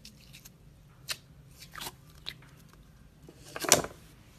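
A thin plastic tub of clear slime being handled and squeezed: a few short crackles and clicks, then a longer, louder crackling squish about three and a half seconds in as the clear slime comes out of the tub.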